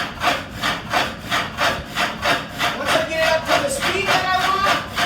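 Water-powered up-and-down sash saw cutting through wood, a steady rhythm of rasping strokes at about three pulses a second, as the turned-up water flow brings it up to speed.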